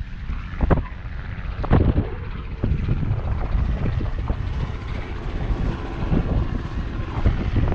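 Wind buffeting the microphone as a loud, steady low rumble, over the wash of surf. A couple of brief thumps come in the first two seconds.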